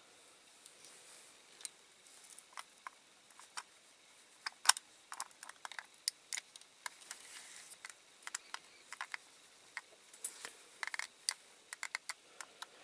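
Irregular small clicks and taps of a diecast model's parts being handled and pressed together by hand, with one sharper click about four and a half seconds in.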